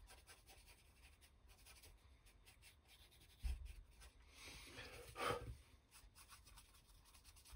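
Faint scratchy strokes of a small brush dry-brushing metallic wax onto a laser-cut MDF cow skull. A low thump about three and a half seconds in, and a louder rasp about five seconds in.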